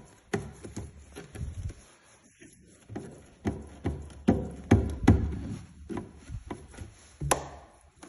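Wooden staircase knocking and creaking under footsteps, a series of irregular heavy thuds: the creaky treads the staircase is known for.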